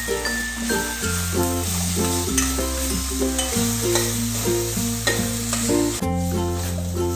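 Light instrumental background music, short melody notes over a bass line, with a metal spoon stirring and scraping a stir-fry of pumpkin skin and grated coconut in a steel pot as it sizzles.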